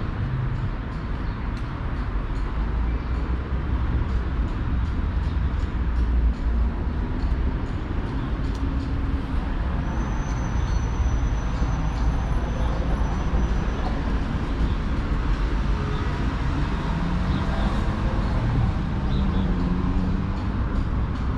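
Busy city street traffic: a steady rumble of passing cars and buses. Near the end a vehicle engine's pitch rises and falls as it pulls away.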